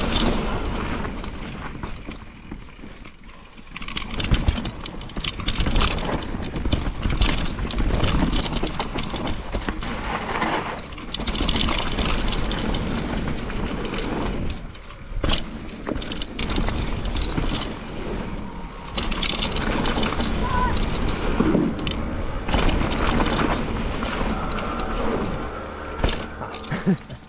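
Mountain bike ridden down a rough trail, heard from a camera on the bike or rider: steady wind and tyre rumble with frequent irregular knocks and rattles from the bike over roots and drops.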